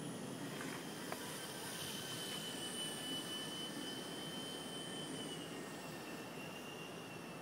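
High whine of a Solo Pro 328 micro RC helicopter's electric motor and rotors in flight, holding steady and then dipping slightly in pitch about five seconds in, over wind noise on the microphone.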